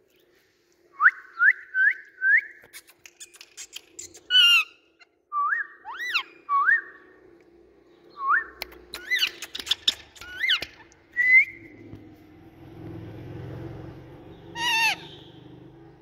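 Indian ringneck parakeets whistling: short rising whistles in quick runs of three or four, with clicks between them and a wavering call about four seconds in and again near the end.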